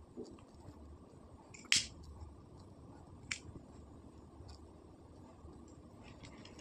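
Two sharp clicks from a plastic disposable lighter used to melt a macrame cord end, the first louder, about a second and a half apart.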